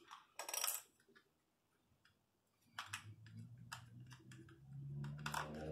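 Light plastic clicks and a short rustle from a plastic TV remote control being handled and turned over. A faint low hum rises underneath in the second half.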